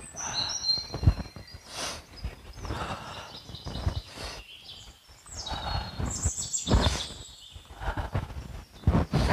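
Forest birds chirping, with thin high calls near the start and again a little past the middle. Under them come repeated rushes of noise and low thumps from a person moving on dry leaf litter.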